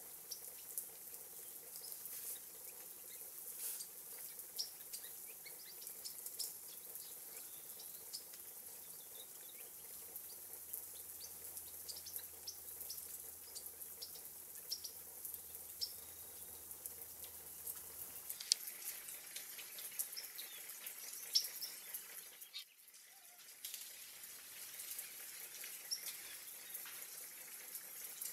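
Many brief, high chirps and calls of small finches over a steady hiss of water from a sprinkler.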